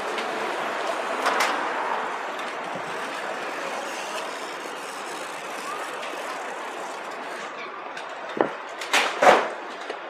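Street traffic, a large vehicle passing and its noise slowly fading, then three sharp knocks close together near the end.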